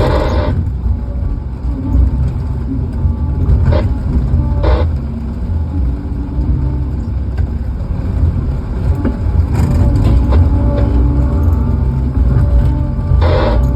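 Vehicle engine running with a steady low rumble, with a few short knocks and clatters over it.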